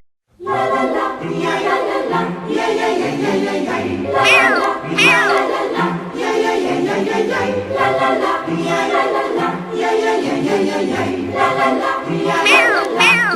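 Music with a choir of voices singing over a steady low beat, starting after a brief gap; high falling swoops come twice about four seconds in and twice again near the end.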